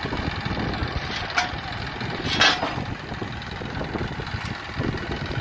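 Tractor diesel engine idling steadily. Two brief sharp sounds cut through it, the louder one about halfway through.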